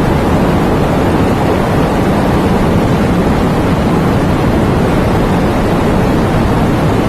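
Rain sound effect: a steady, even hiss of rain with no let-up or change.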